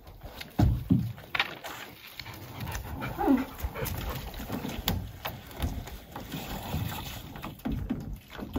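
A dog in a canoe whines once, a short falling note about three seconds in, among the soft knocks and splashes of paddling.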